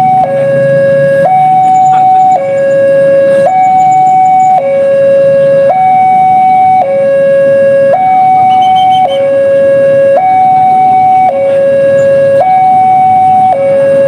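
Railway level-crossing warning alarm sounding continuously, alternating between a lower and a higher tone about once a second: the signal that a train is approaching and the crossing barrier is closed. A low engine rumble runs underneath.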